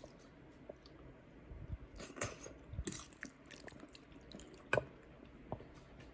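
Scattered small clicks, taps and rustles of close-up handling, with a sharper click a little before the end.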